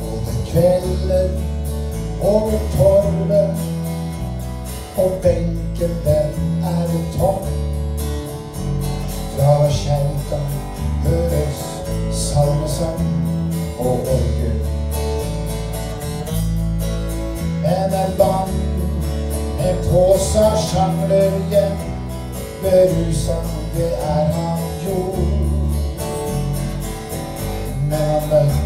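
A man singing a song while strumming an acoustic guitar, the melody coming in phrases over steady chords.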